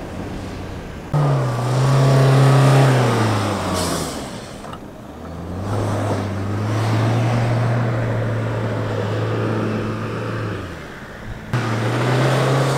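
Mahindra Thar SUV engines revving hard under load while climbing soft sand dunes, in several separate shots. The engine note jumps in abruptly about a second in and falls away, then rises and holds steady for several seconds, and a fresh burst of revs comes in near the end.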